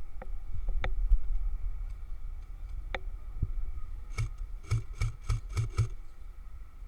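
Airsoft gun firing: a few single shots, then a quick string of about seven semi-auto shots at roughly four a second near the middle.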